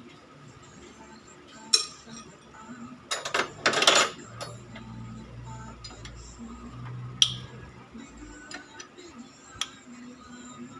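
Metal hand tools and engine parts clinking and knocking against each other, in scattered single clicks, with a louder rasping clatter lasting about a second, roughly three seconds in.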